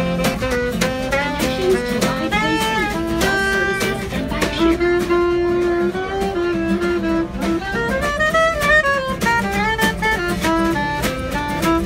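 Small acoustic band playing live: a strummed acoustic guitar and a snare drum keep a steady beat under a sliding lead melody.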